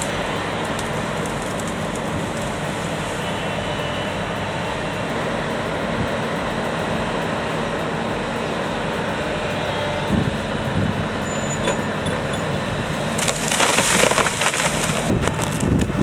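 Heavy machine's engine running steadily. About thirteen seconds in, a louder rushing, crackling burst lasts roughly two seconds.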